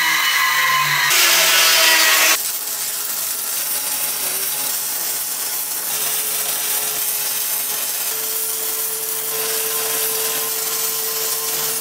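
About two seconds of louder, harsher power-tool cutting noise, then the steady crackling sizzle of a MIG welder laying a bead as a steel round-bar hinge is welded onto the steel smoker barrel.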